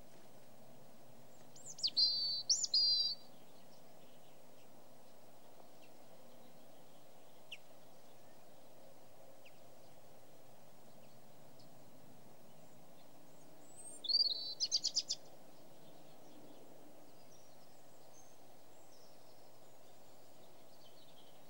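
A bird calls twice, each time a quick run of high chirps lasting about a second and a half, about two seconds in and again about twelve seconds later, over a steady low background noise.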